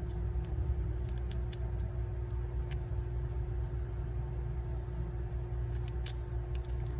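Steady low hum with a constant tone, broken by a few light, sharp clicks.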